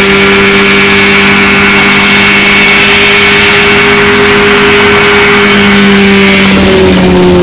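Mosquito XE ultralight helicopter hovering close by: a steady engine drone with a high whine over rotor noise. Near the end the pitch drops slightly as it settles toward the ground.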